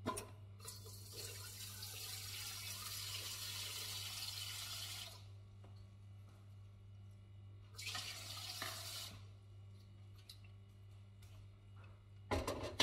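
Kitchen tap running for about five seconds, shut off, then run again briefly about eight seconds in, over a low steady hum.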